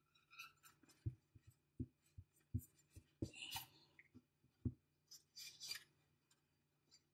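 Faint handling of a deck of oracle cards: a string of soft taps and a few brief sliding rustles as cards are drawn and one is laid down on a cloth.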